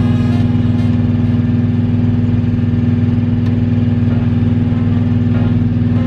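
An engine running steadily at idle, a low even drone. A few faint clicks of hand work are heard over it.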